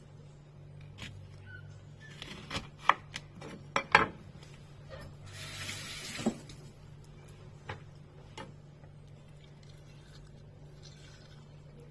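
Kitchen utensils and dishes clinking and knocking: a scattering of separate taps and clicks, the loudest two about four seconds in, and a brief rushing scrape about five seconds in. A low steady hum sits under it all.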